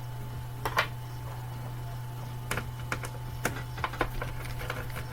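Scattered small clicks and taps of hands handling computer parts while removing them from a motherboard, one louder click about a second in, over a steady low hum.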